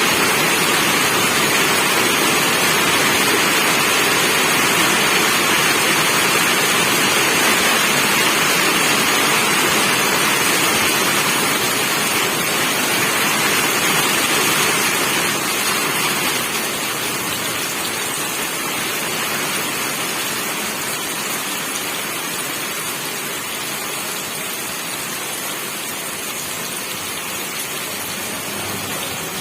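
Steady heavy rain falling, a dense even hiss of drops; it eases and softens a little about halfway through.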